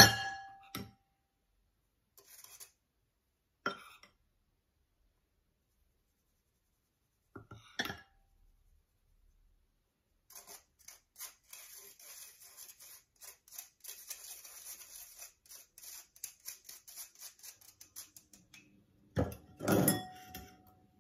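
Metal spoon working flour through a fine-mesh metal sieve: a few single clinks, then a long run of quick small scratches and ticks, and a louder clatter of metal on metal and ceramic near the end as the sieve and spoon are set down.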